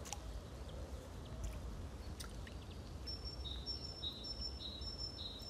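A songbird singing a repeated two-note phrase, a high note then a lower one, over and over from about three seconds in, over steady low outdoor background noise.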